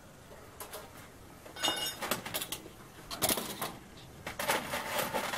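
Aluminium spoons and small cast trinkets clinking against each other and the metal tray as hands sort through the heap: scattered clinks starting about a second and a half in, the first with a short ringing chime.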